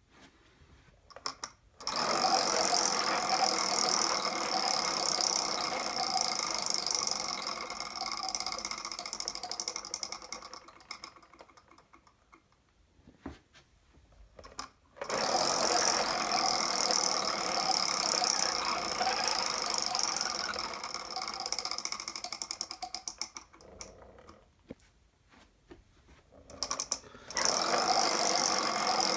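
Homemade prize wheel spun three times: the pegs around its rim rattle rapidly against the pointer, and each spin fades away and thins to a few separate clicks as the wheel slows. The third spin starts near the end.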